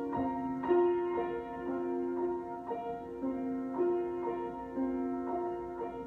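Solo piano improvisation: single notes and chords struck at an unhurried pace, about two a second, each left ringing into the next.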